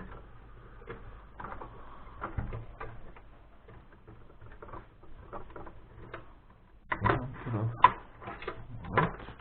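Irregular clicks and knocks of a desktop PC's metal and plastic parts being handled and pulled apart by hand, with a louder run of knocks near the end.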